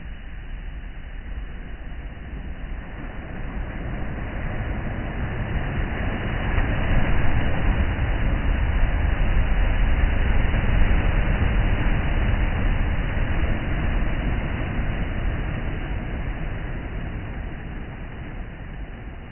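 Sea waves surging and breaking on the shore: a rushing noise with a deep low rumble that builds over several seconds, peaks around the middle and slowly fades away.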